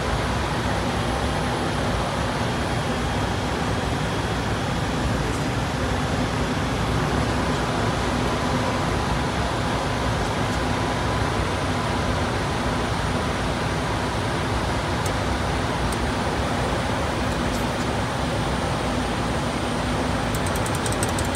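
Steady in-flight cockpit noise of a Dornier 328JET on approach: the even rush of airflow and the drone of its turbofan engines, with a few faint steady tones in it. A short run of faint clicks comes near the end.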